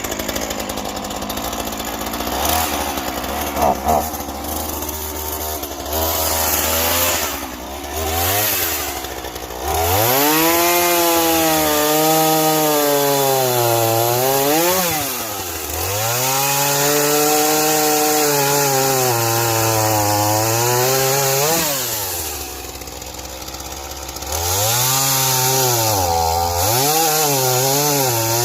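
Ryobi 37 cc two-stroke chainsaw idling, blipped a couple of times, then held at full throttle about ten seconds in to cut a log. The engine pitch sags and recovers repeatedly as the chain bites into the wood, drops back briefly, then climbs to full revs again near the end.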